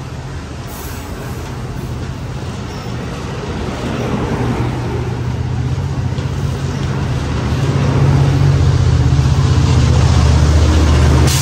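Capitol Corridor passenger train pulling out, its bilevel cars rolling past with steady wheel-on-rail noise that grows louder. A deep diesel engine drone swells over the last few seconds as the train's rear locomotive, a Caltrans F59PHI, draws near.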